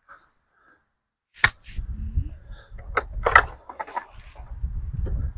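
A sharp knock about a second and a half in, then low handling noise with a few more knocks and clicks as fence parts are shifted and fitted into place.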